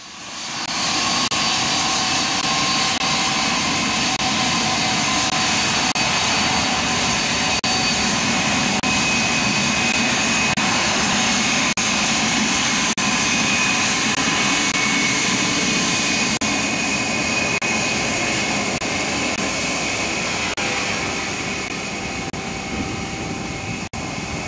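Ilyushin Il-86 airliner's four turbofan jet engines running loud and steady: a dense rush of noise with several high whining tones on top. It eases slightly near the end.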